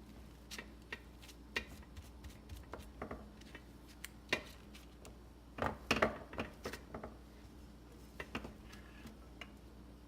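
Irregular clinks, knocks and scrapes of a scoop against a mixing bowl and cupcake tin as dense, crumbly batter is scooped and packed into the cups, with a louder cluster of knocks in the middle.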